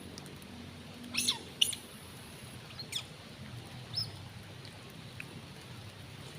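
Monkeys giving short, high-pitched squeaks, about four sharp calls over a few seconds, each sliding down in pitch.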